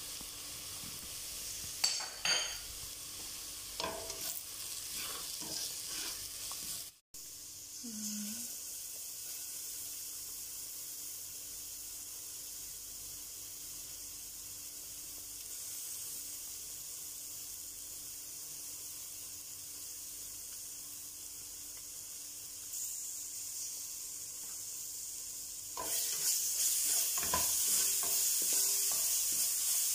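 Chopped onions, garlic and spices sizzling in oil in a stainless steel pot, a steady hiss with a few light knocks about two and four seconds in. Near the end the sizzling grows louder as a spoon stirs and scrapes through the onions and tomato paste.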